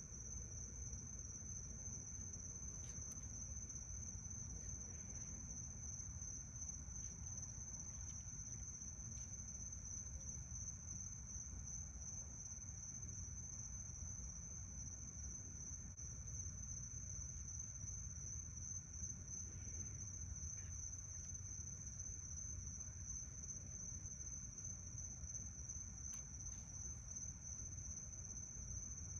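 Crickets trilling steadily in one high, unbroken note, over a low steady rumble.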